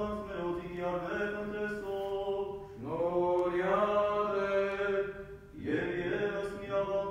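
Armenian liturgical chant sung by a single voice in long held notes. New phrases start with a rising glide about three seconds in and again about five and a half seconds in.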